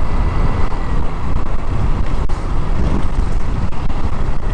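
Yamaha Mio scooter on the move: a steady rush of wind on the microphone over the scooter's running engine.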